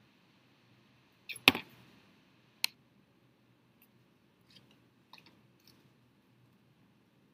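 Art supplies being handled on a table's cutting mat: a loud knock about one and a half seconds in, a sharp click a second later, then a few faint light taps.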